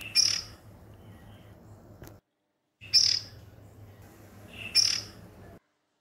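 Juvenile oriental magpie robin giving three short, high-pitched calls, spaced about two seconds apart.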